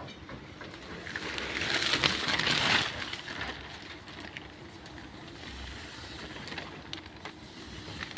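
A loud burst of hissing that starts about a second in and lasts about two seconds, over a low background of faint clicks and rustles.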